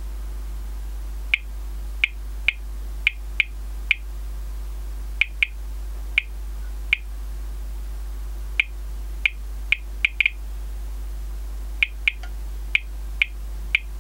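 Thermo Scientific RadEye G-10 gamma survey meter clicking at random, irregular intervals, about one or two short high chirps a second. Each chirp marks detected gamma radiation: the meter is lying in a radioactive orange-glazed ceramic dish, and its dose-rate reading climbs well above background.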